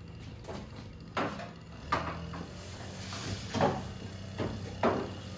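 Four sharp knocks and clunks spread unevenly over a few seconds, with a faint steady low hum underneath.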